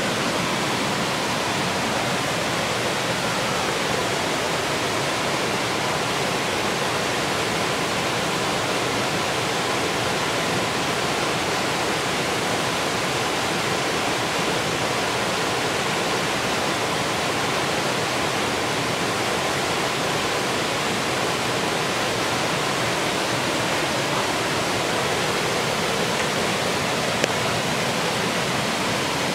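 Two-tier waterfall pouring over rock ledges into a pool: a steady, unbroken rush of falling water.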